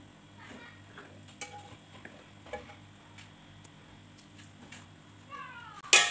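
Wooden spatula lightly knocking and scraping against a frying pan and glass jar as thick pepper paste is spooned across, with small taps about every half second. Near the end comes a brief squeak, then a loud clatter of cookware being set down on the counter.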